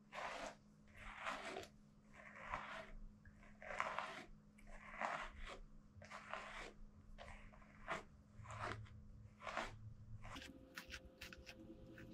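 A pet brush drawn again and again through a Shih Tzu's long coat, each stroke a short scratchy rasp, about one a second. Near the end the strokes give way to quicker, fainter ticks over a steady hum.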